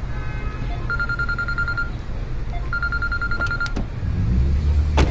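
Telephone ringing: an electronic trilling ring in bursts about a second long, three of them with a short gap between each, and a fourth just starting at the end. A low steady hum runs underneath, and a sharp click comes near the end over a rising low rumble.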